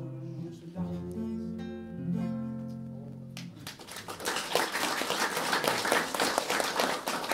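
Acoustic guitar playing the last few plucked notes and chords of a song, which ring and die away. About three and a half seconds in, an audience breaks into applause, louder than the guitar, that goes on to the end.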